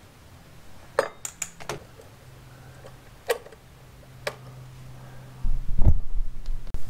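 Light metallic clicks and clinks, about six in all, as a fish finder transducer on its metal bracket is handled and held against a plastic mounting board on a boat's transom. A low rumble with a thud comes in near the end.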